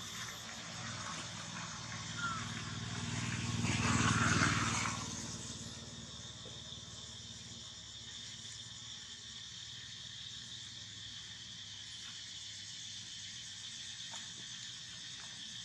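A motor vehicle passing, its engine swelling up about two seconds in and fading away by about six seconds, over a steady high hiss of outdoor ambience.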